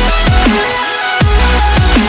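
Electronic background music with a steady beat and deep bass notes that slide down in pitch.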